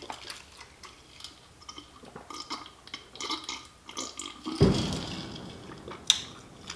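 Soft sips and swallows from a glass jar. A little past halfway comes a sudden deep boom that rumbles away over about a second: an explosion set off at a nearby federal law enforcement training facility. A sharp click follows shortly after.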